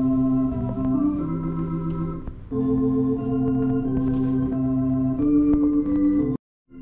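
Organ music of held chords, the chords changing every second or two. It cuts off suddenly near the end and comes back quieter.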